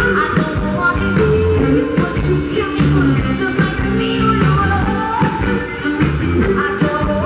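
Live blues-rock band playing: electric guitar, bass and drums with women singing.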